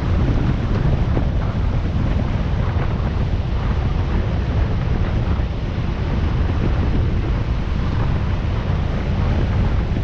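Wind rushing over the microphone of a riding motorcycle at road speed, a steady low rumble with the motorcycle's engine and tyre noise underneath.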